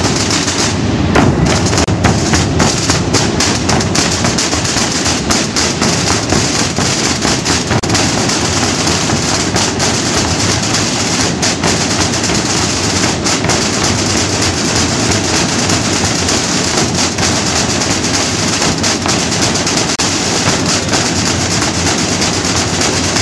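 Massed Holy Week drum band playing: rows of large bass drums and snare drums beaten together in a dense, continuous drumming.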